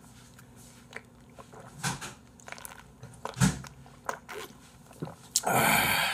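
A person drinking from a small drink carton close to a microphone: mouth and swallowing sounds with scattered small clicks and a low thud about three and a half seconds in. Near the end comes a loud, hissing burst of noise lasting under a second.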